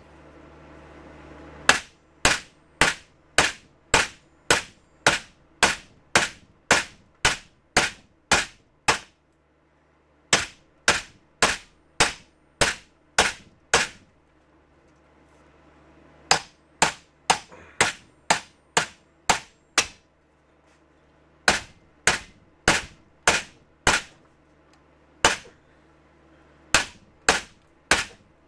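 Tire iron striking a steel pump-shotgun lock: sharp metallic blows at about two a second, in runs of several strikes with short pauses between runs.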